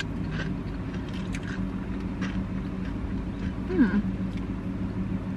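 Chewing and soft crunching of a battered onion ring dipped in cheese sauce, faint crisp clicks every half second or so, over a steady low vehicle hum. A short falling hummed "mm" comes just before four seconds in.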